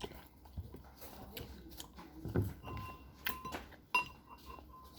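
Cutlery and dishes clinking during a meal of sausages and sausage soup: scattered sharp taps and clicks, some with a short ringing tone.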